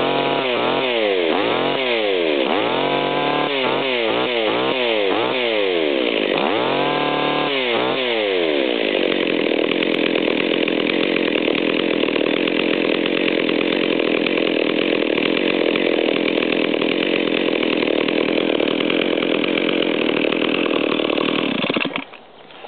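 Stihl 024 Super two-stroke chainsaw engine revved repeatedly, its pitch rising and falling about seven times, then running steadily before it is shut off near the end. Its carburettor is set a little rich.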